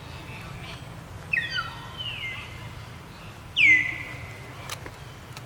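An animal's high calls, twice: each slides down in pitch and then holds, and the second, about three and a half seconds in, is the louder.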